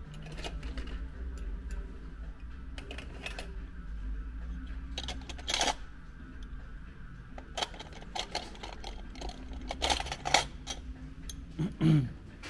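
Metal binder clips clicking and clinking as they are handled and picked out of plastic bins, with scattered sharp clicks and a few louder rattles. A brief low falling tone near the end, the loudest sound, over a steady low hum.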